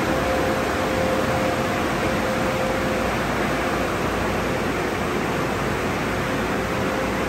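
Car wash tunnel machinery running, with a cloth top brush spinning over a car: a steady, even rush of noise with a faint whine that comes and goes.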